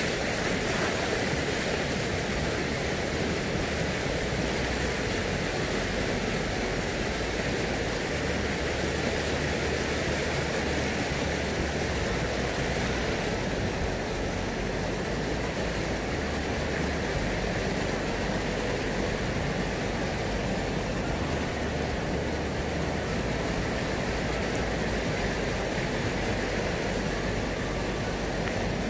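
Steady rushing noise of wind and sea surf at the water's edge, with low rumbling buffets of wind on the microphone.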